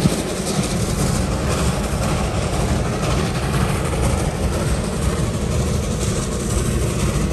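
Train cars rolling along the rails: a steady low rumble with rattling and clatter.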